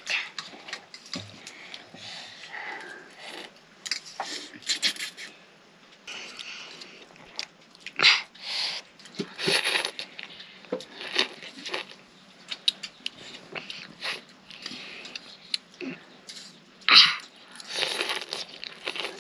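People eating noodle soup: irregular slurps, chewing and small clicks, with several louder slurps.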